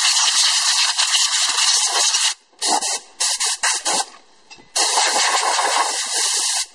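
Compressed-air blow gun hissing as it blasts brake dust out of a drum brake assembly and wheel hub. A long continuous blast stops about two and a half seconds in, followed by a few short bursts, a brief pause, and another long blast that ends just before the close.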